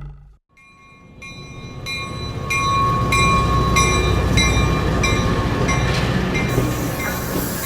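Train running past: a steady rumble that builds over the first two seconds, with a regular ringing tick about twice a second.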